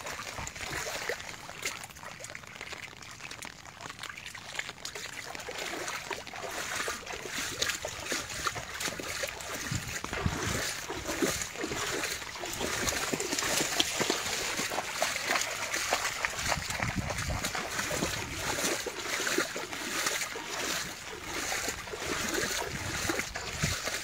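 Shallow floodwater splashing and trickling, with many small irregular splashes over a steady watery hiss.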